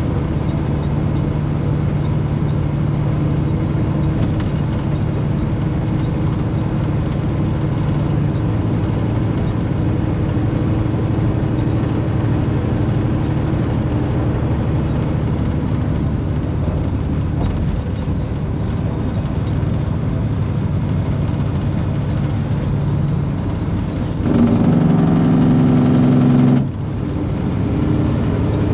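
Semi-truck engine and road noise heard from inside the cab while cruising on the highway: a steady hum with a faint high whine that slowly rises and falls. Near the end a louder pitched sound comes in for about two seconds, then cuts off suddenly.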